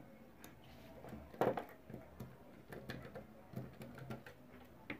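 Faint scattered clicks and scrapes of a screwdriver loosening a small wiring terminal screw, with one louder handling noise about a second and a half in.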